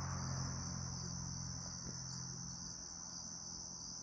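Steady high-pitched trilling of crickets. A low hum underneath fades out over the first few seconds.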